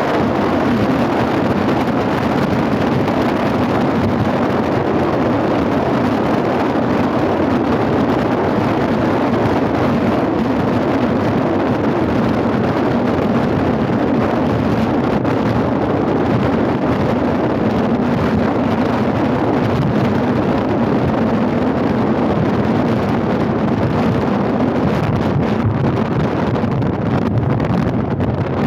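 Steady, loud rush of wind on the microphone, unbroken throughout.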